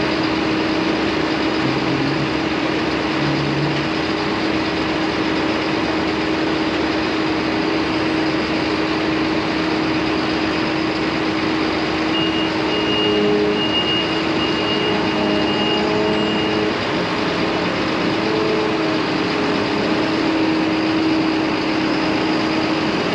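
John Deere self-propelled forage harvester's diesel engine running steadily, with a short run of high beeps about halfway through as the machine is driven back off its detached pickup header.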